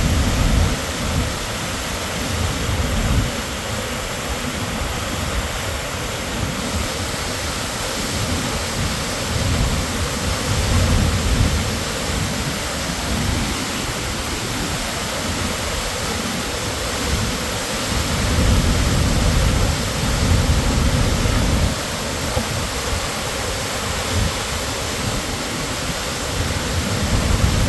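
Steady roar of a large waterfall, the 100-foot plunge of Sahalie Falls, an even rushing noise with a deep low rumble that swells and eases every few seconds.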